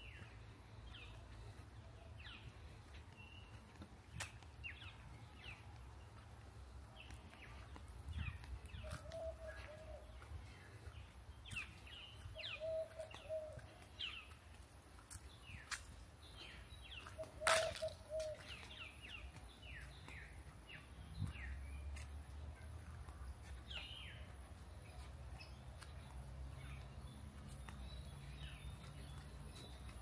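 Birds calling in tropical rainforest: many short, high, downward chirps, and a lower warbling call three times in the middle. There are occasional sharp clicks, the loudest about halfway through, over a faint low rumble.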